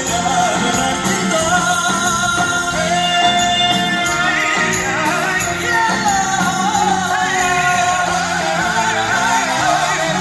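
Two male singers singing a duet live with a band accompaniment, with long held notes, amplified through the studio sound system.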